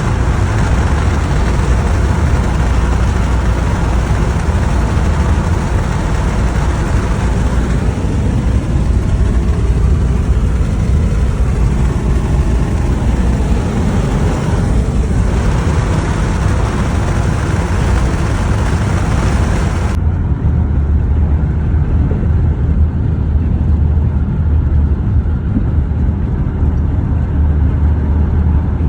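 Steady road noise of a moving motor vehicle, a low rumble with hiss above it. About two-thirds of the way through, the upper hiss cuts off suddenly while the low rumble carries on.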